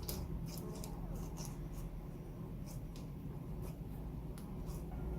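Sticky clicks and small pops of slime being kneaded and stretched by hand, scattered irregularly, over a steady low hum.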